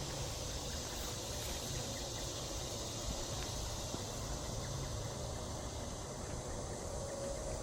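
Steady drone of late-summer insects, crickets among them, over a constant low rumble.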